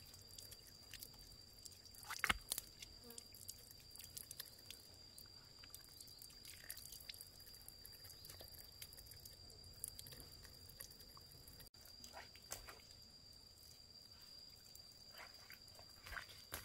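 Quiet outdoor sound of a thin stream of water running from a plastic pipe over hands and feet, with small splashes and taps, and a faint steady high tone throughout. Near the end come a few footsteps on stony ground.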